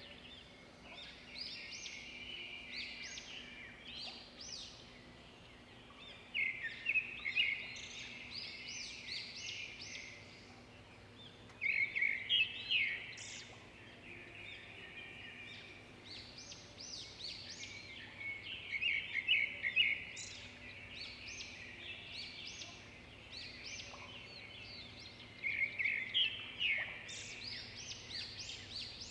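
Birds singing and chirping: quick high notes and trills throughout, with louder bursts of rapid calls every few seconds. A faint steady low hum sits underneath.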